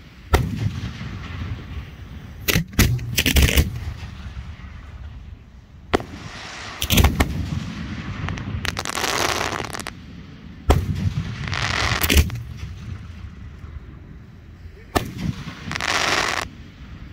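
Aerial firework shells bursting overhead: sharp bangs every one to three seconds, several followed by about a second of crackle.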